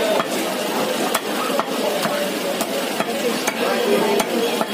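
A heavy knife chopping and scraping raw chicken on a wooden tree-stump chopping block: a handful of sharp, irregular knocks over steady market background noise with faint voices.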